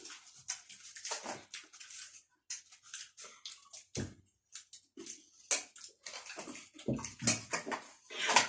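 Chatpatey, a spicy puffed-rice snack, being eaten fast by several people: a run of irregular short crunches and scrapes, with spoons scraping against bowls.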